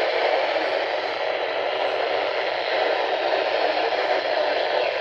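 Steady hiss of static from a weather radio receiver, with no voice or tones coming through.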